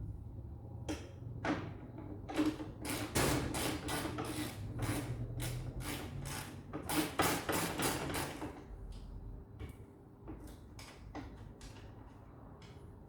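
Hand tools clicking and knocking against metal while a Jeep's hood is being unbolted: a quick run of clicks, densest for about five seconds in the middle, over a low steady hum.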